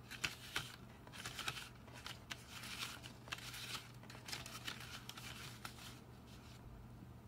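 Two stacked paper plates rustling and scraping against each other as they are turned by hand, in a run of short crinkly scrapes, over a faint steady hum.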